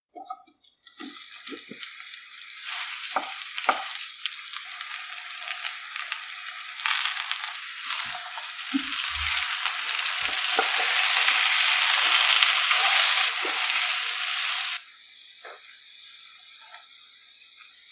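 Food frying in hot oil in a pan, sizzling, with a spatula knocking and scraping as it is stirred. The sizzle grows louder about halfway through, then drops suddenly near the end to a faint hiss.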